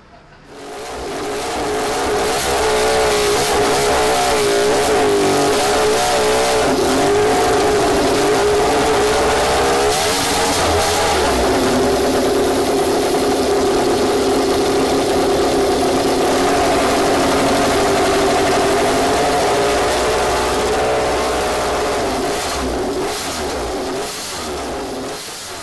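Racing engine held at high revs, its pitch wavering up and down and stepping lower about eleven seconds in, then fading out near the end.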